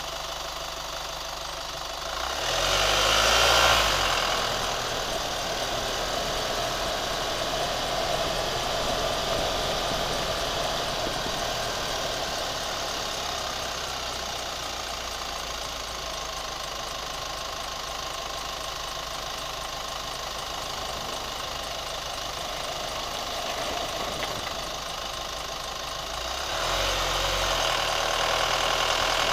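Chevrolet Colorado pickup engine idling, revved briefly about two seconds in and again near the end; the truck has a ticking noise that its owner is trying to pin down.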